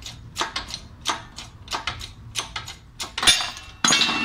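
Shop press working a wheel hub out of a car's front steering knuckle: a regular series of clicks about three a second, then a sharp crack about three seconds in and a loud metallic clatter near the end as the hub breaks free, taking part of the worn wheel bearing's race with it.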